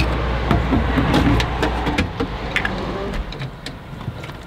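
Empty plastic water bottles and a jug clunking and clicking as they are handled, with a few sharp knocks. Under them runs the low steady hum of a car engine, which fades about three seconds in.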